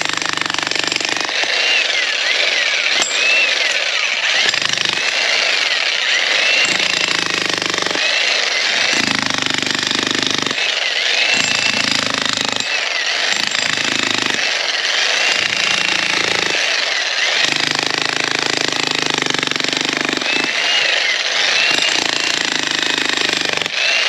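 110-volt electric demolition jack hammer hammering continuously into hard rock. The deep pounding of the strokes drops away and comes back every second or so as the bit bites and eases.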